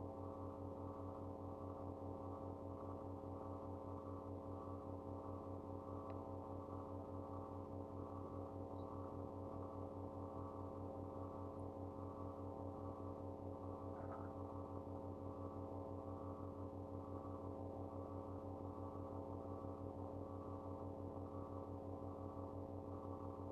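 A steady low hum with many overtones, unchanging throughout, with a slight rapid wavering.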